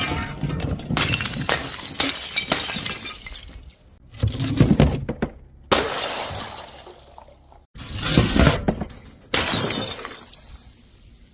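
Glass bottles shattering, a series of about five separate breaking crashes with tinkling fragments, several starting or cutting off abruptly.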